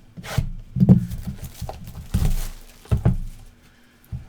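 Handling noises as card boxes and packaging are moved on a table: a few dull thumps and knocks, with a short rustle of packaging about two seconds in.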